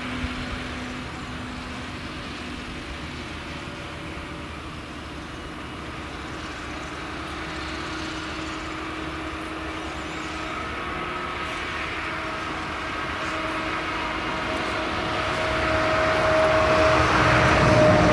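Claas Jaguar 970 forage harvester chopping sorghum, its V8 engine and chopping drum running steadily, mixed with a Fendt tractor hauling a silage trailer past close by. A steady machine drone with a few held tones that grows louder in the last few seconds.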